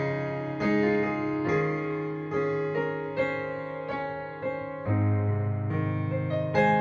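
Background music: a gentle piano-like keyboard melody with notes struck about twice a second.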